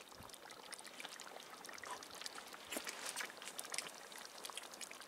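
Faint, irregular bubbling and popping of a thick cream sauce simmering in a cast-iron Dutch oven over charcoal briquettes.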